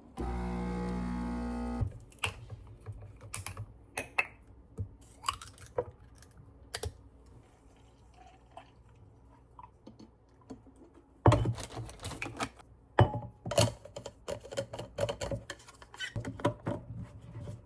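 A steady hum for about the first two seconds, then scattered light clicks and taps, coming thick and fast in the second half.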